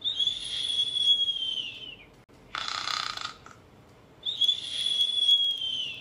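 Cartoon snoring sound effect: a long whistle on the out-breath that slides slowly down in pitch, a short snore on the in-breath about halfway through, then another falling whistle. The whistles are the loudest part.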